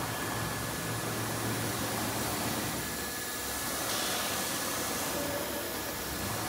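CIMTECH 2130 four-axis CNC router running: a steady hiss of machine noise with a thin, high steady whine as the gantry and tilting spindle head move. The hiss turns brighter about four seconds in.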